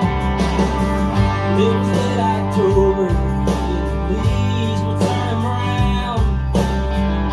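Recorded music played loud over a home hi-fi's main speakers and subwoofers in a room: a song with guitar and a singing voice over deep bass notes that change about every second or so.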